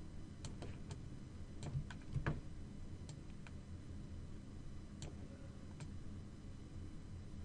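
Scattered, irregular clicks of a computer mouse and keyboard, with two duller, louder knocks about two seconds in, over a steady low hum.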